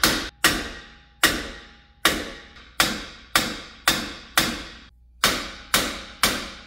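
A hammer beating metal-on-metal on a Subaru's rusted-in wheel bearing hub assembly to drive it loose: about eleven hard blows, roughly two a second with a short break a little past the middle, each ringing briefly. The hub is seized in the knuckle and will not let go.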